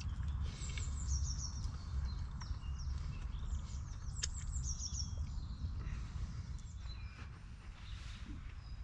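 Woodland songbirds singing: repeated high chirps and short falling trills, over a steady low rumble that is the loudest part.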